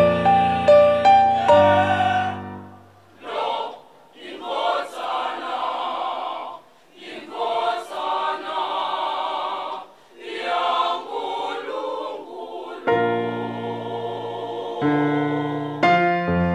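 A mixed-voice school choir singing unaccompanied in phrases with short breaks between them. It is framed by keyboard notes at the start and by sustained keyboard chords from about three-quarters of the way through.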